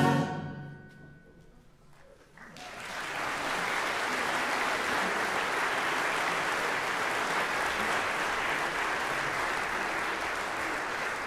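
The final chord of the chorus and instruments cuts off and rings away in the hall. After about two seconds of near silence, the audience breaks into applause, which keeps up steadily.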